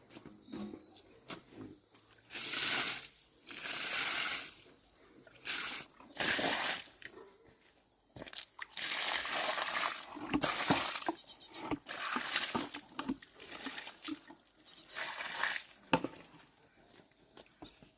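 Water pouring and splashing in several bursts, with a longer run of splashing in the middle.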